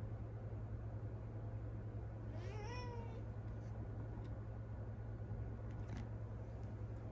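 A cat meows once, a short call that rises and then falls in pitch about two and a half seconds in, over a steady low hum. A few faint clicks follow near the end.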